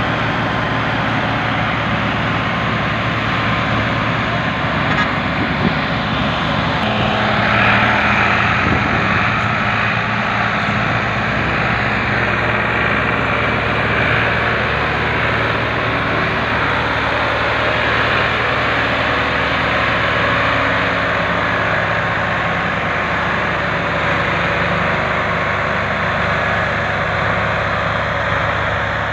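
Ford tractor diesel engines running hard under load, pulling a heavily loaded trolley across soft ploughed ground. A steady, continuous engine note that swells a little about eight seconds in.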